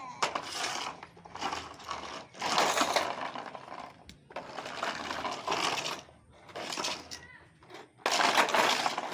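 Plastic toy cars rattling, scraping and knocking together as they are pushed into each other, in a run of uneven clattering bursts.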